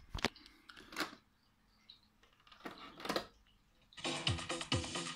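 Several clicks and clunks from a ZRK RMS404 radio-cassette recorder's cassette deck being handled. About four seconds in, music with a steady electronic beat starts playing from the set.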